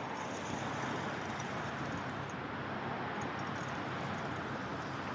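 Steady rushing outdoor background noise, with no distinct sounds standing out.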